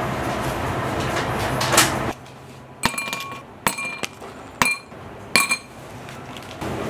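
For about two seconds there is a steady noisy hiss with a low hum. Then ice cubes drop one at a time into a stemmed glass: four sharp clinks, each ringing briefly.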